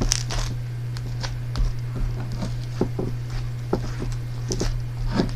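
Scattered soft taps and clicks at an uneven pace, over a steady low hum.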